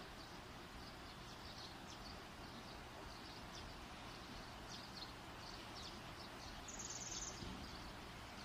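Faint steady background noise with small birds chirping now and then, in short high calls.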